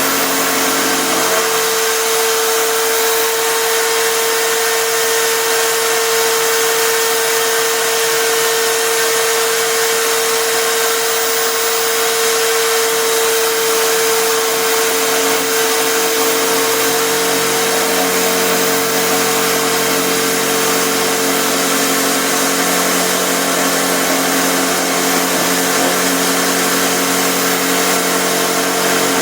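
Electric drill serving as the motor of a home-made router table, running steadily with a continuous high whine.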